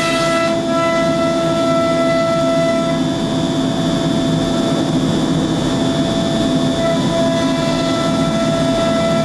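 MultiCam 5000 Series CNC router's spindle running with a steady high whine while the cutter routes a plywood sheet. Part of the whine fades from about three seconds in and returns around seven seconds.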